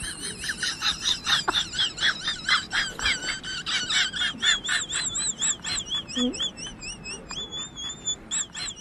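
A quick, even run of high-pitched chirps, about three to four a second, each rising and falling in pitch, with a few longer held notes near the end.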